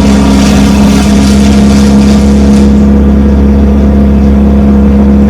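Wood chipper's engine running steadily at close range, a loud, even drone. A rushing hiss sits over it for the first three seconds or so.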